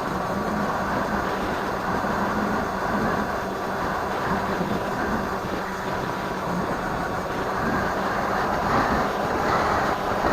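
Steady wind rush over the microphone of a keychain camera riding on a Firebird Stratos RC plane in flight, with the electric motor and propeller humming underneath. The noise swells slightly near the end.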